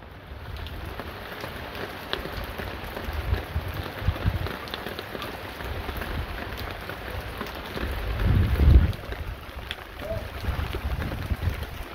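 Heavy rain falling steadily, with many sharp drop hits, and gusts of wind buffeting the microphone in low rumbles; the strongest gust comes about eight to nine seconds in.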